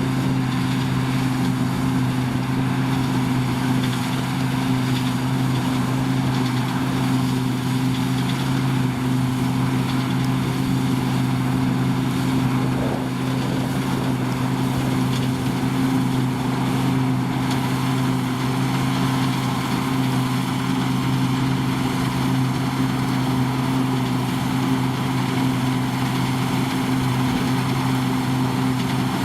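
New Holland combine harvester running steadily at working speed, a constant mechanical drone with a low, even hum.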